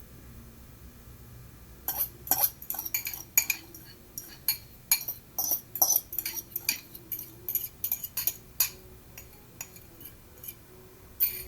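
Metal fork clinking and scraping against a dish in quick, irregular taps while breaking cooked chicken breast into small pieces. The taps start about two seconds in and stop for a while near the end, then come twice more.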